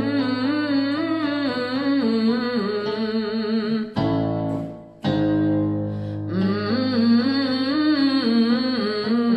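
A woman hums a short up-and-down run of notes on closed lips ('mmm') as a vocal warm-up, over a sustained piano chord. Near the middle the piano sounds a new chord and she hums the same run again, a step lower.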